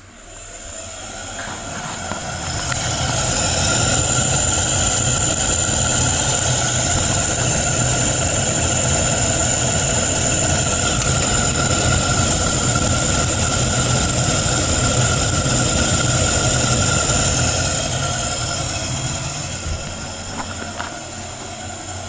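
Ten-year-old bathroom ceiling ventilation fan running with a steady high whine over a low rattling rumble: the abnormal noise that has come back in this aging unit. It grows louder over the first few seconds and eases off near the end.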